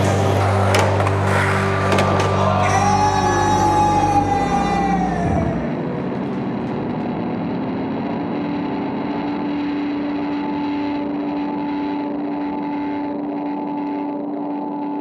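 Background music with a strong steady bass, with a few sharp skateboard clacks in the first couple of seconds. About three seconds in, the music bends away in a curving pitch sweep and stops, leaving one steady held tone.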